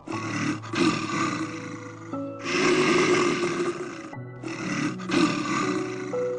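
An animal roaring three times, each call about two seconds long and rough, over background music with held notes.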